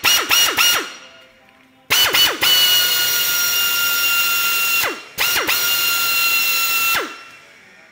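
Air-powered rivet nut tool's air motor triggered in a few quick blips, then run twice for about three and two seconds: a steady high whine over a hiss of air that winds down in pitch each time it is released.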